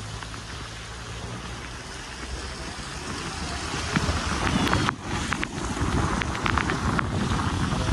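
Car on the move: engine hum with steady tyre and wind noise, growing louder about halfway through, with a few light taps and clicks.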